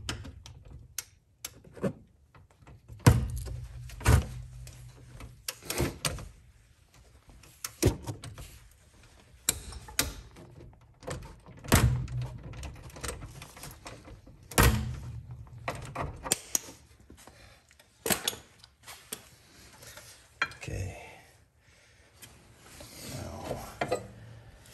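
Irregular metallic clanks and knocks from a ratchet and 17 mm socket working the rear brake caliper bolts, a sharp hit every second or two.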